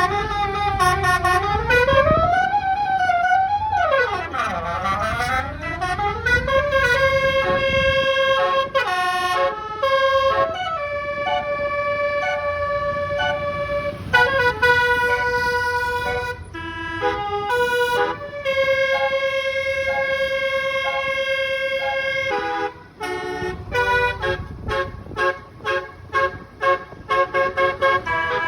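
Bus telolet horn playing: siren-like sweeps up and down in pitch for the first few seconds, then a tune of long held notes, and quick short staccato notes near the end. A low engine rumble sits underneath at the start.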